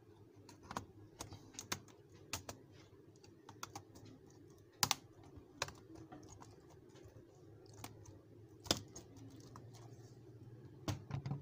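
Replacement keyboard of an HP ProBook laptop being pressed down by hand to seat it, its keys and frame clicking irregularly as it snaps into place. The two loudest clicks come about five and nine seconds in, with a quick run of clicks near the end.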